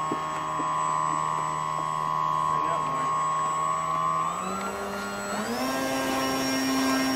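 Radio-controlled model airplane's motor running at a steady pitch, then revved up in two quick steps in the second half, its pitch rising each time.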